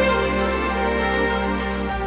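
Background music: soft, sustained instrumental score, with a chord change near the end.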